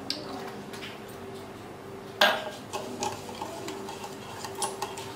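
Hand whisk beating eggs, sugar and vanilla essence in a glass bowl, its wires clicking against the glass roughly three or four times a second from about two and a half seconds in. Just before, a single sharp knock.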